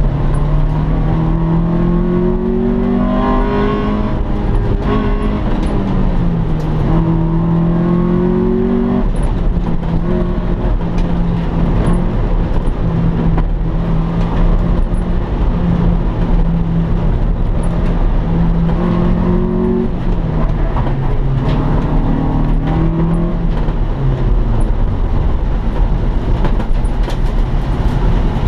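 Mitsubishi Colt GLi's 1.3-litre four-cylinder engine, heard from inside the cabin through a Kawasaki Ninja motorcycle exhaust, revving hard on a slalom run. The revs climb, dip and climb again, hold steady for about ten seconds, rise once more and then fall away as the car slows near the end, with road and wind noise underneath.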